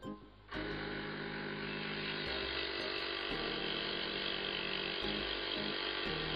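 Scroll saw starting about half a second in and running steadily, its blade cutting through plywood, over background music.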